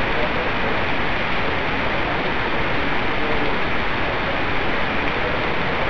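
Heavy rain pouring steadily, an even hiss of water on pavement.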